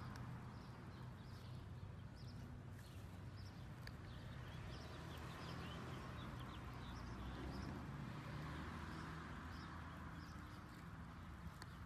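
Faint outdoor background noise with small birds chirping now and then, high and brief, and an occasional light click.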